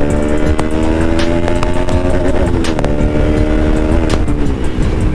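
Kawasaki Z900's inline-four engine on its stock exhaust accelerating hard, pitch climbing, with quick upshifts about two and a half and four seconds in. Heavy wind rumble on the microphone.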